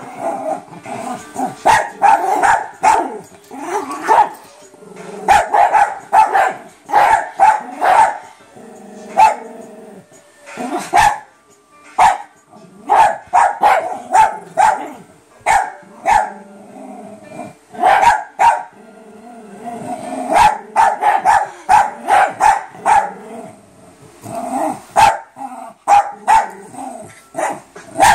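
Several small dogs barking in rapid bursts as they play-fight, with lower growling between the barks; the barking eases off for a moment a few times before starting up again.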